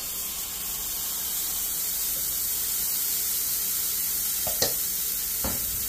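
Pancake batter sizzling steadily in hot oil in a cast-iron skillet, the hiss starting the moment the batter hits the pan. Two light knocks near the end.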